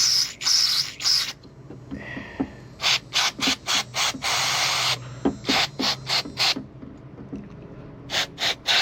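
Aerosol carburetor cleaner sprayed into a small-engine carburetor's jets and passages: a longer spray at the start and another about four seconds in, with runs of short, quick squirts between them and near the end.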